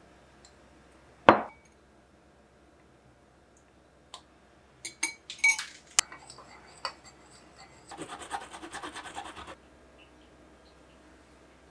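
Metal spoon clinking against a small glass mixing bowl: one sharp clink about a second in, a scatter of clinks near the middle, then about a second and a half of quick, rhythmic scraping and clinking as a liquid sauce is stirred in the bowl.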